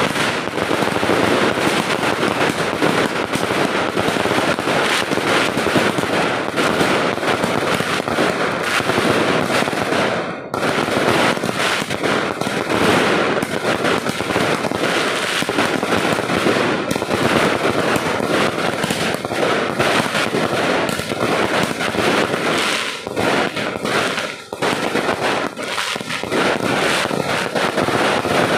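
Fireworks going off in a loud, dense, continuous barrage of rapid crackling bangs, with a brief break about ten seconds in.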